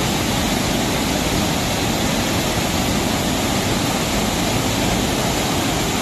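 Waterfall pouring over a rock ledge into a shallow pool, with spray splashing off a boulder: a loud, steady rush of falling water.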